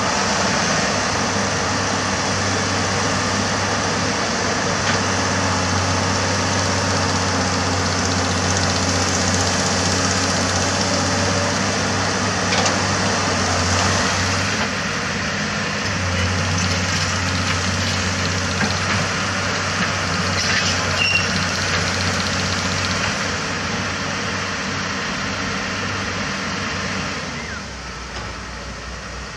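Heavy-equipment diesel engine running steadily with a low hum, dropping in level near the end.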